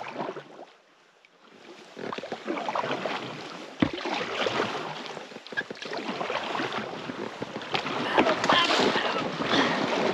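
River water rushing and splashing around a raft drifting downstream, starting after a quiet second or two and growing louder toward the end, with a sharp knock about four seconds in.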